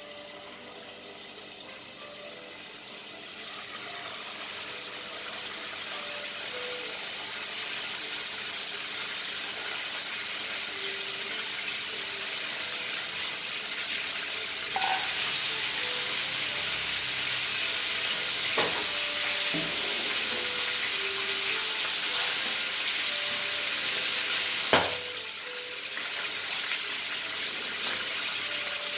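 Raw mutton pieces sizzling as they fry in a nonstick kadai over a gas flame, the sizzle building over the first few seconds and getting louder about halfway in as more pieces go into the pan. A few sharp clicks sound in the second half, the loudest near the end.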